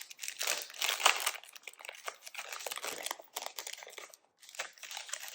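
Foil booster pack wrapper crinkling as it is handled and opened, in a run of rustling bursts that are loudest about a second in.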